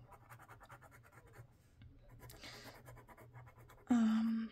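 Glue pen tip being drawn across paper: a fine, quick scratching much like a pen writing or sketching. Near the end a short vocal sound, the loudest thing here, cuts in briefly.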